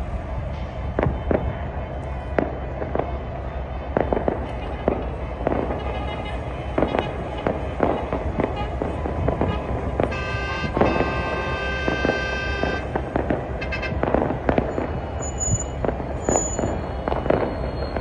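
Firecrackers and fireworks going off in a rapid, irregular string of sharp bangs over a steady low crowd and street din. About ten seconds in, a long held horn-like tone sounds for nearly three seconds.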